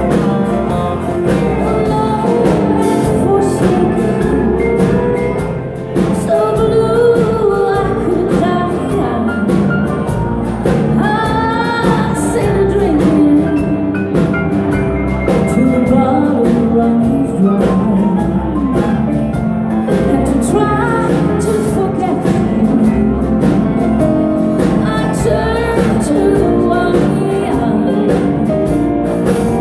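A live band playing, with a singer's voice over drums, bass and guitar.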